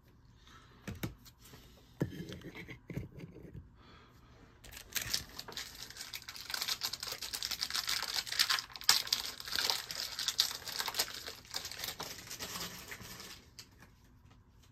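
A few light knocks, then a foil trading-card pack wrapper being torn open and crinkled for several seconds. The crinkling stops shortly before the end.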